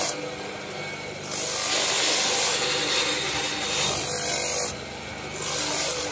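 Electric sanding drum running steadily while a Turkish bow is worked against its abrasive. The grinding hiss swells for a few seconds at a time as the bow is pressed on, and drops back to the motor's hum between passes.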